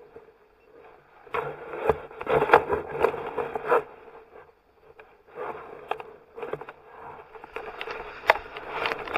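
Irregular scraping, rustling and knocking from a paragliding harness and gear moving against a harness-mounted camera, busiest a little over a second in and again towards the end, over a faint steady hum.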